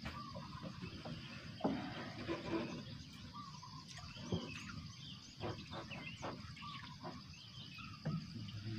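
Outdoor dawn ambience by still water: many birds chirping over a steady high insect drone, with a few soft knocks.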